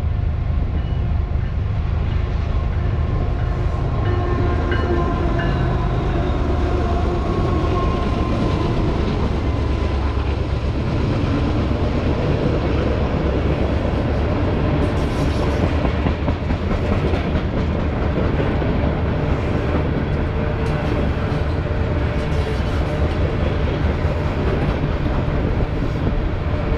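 BNSF freight train passing close by: diesel locomotives running as they come up and go past in the first part, then a long string of coal cars rolling by with a steady rumble. Wheels click over the rail joints more and more often in the second half.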